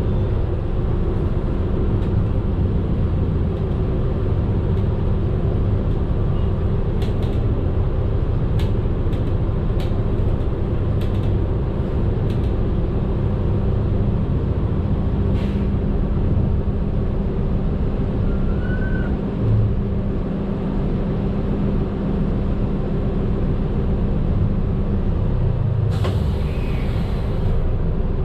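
A medium bus's engine and road noise heard from inside the cab while driving: a steady low drone with a few scattered rattling clicks, and a short hiss of air lasting about a second and a half near the end.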